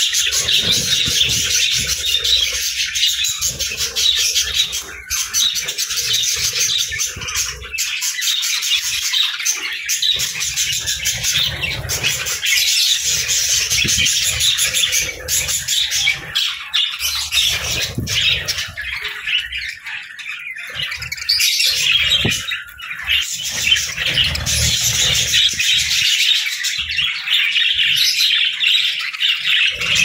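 A flock of budgerigars chattering without pause: a dense mix of warbles, short chirps and the odd squawk.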